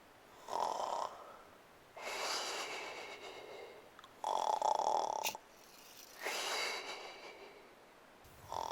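A person snoring: short buzzing inhales about a second long alternate with longer breathy exhales that fade away, two full breaths about every four seconds.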